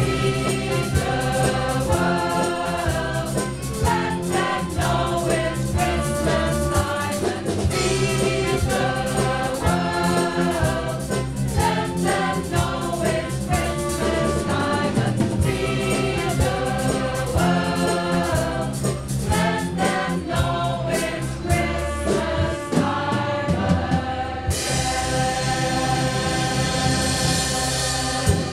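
Choir singing a song with drum accompaniment, ending on a long held chord in the last few seconds.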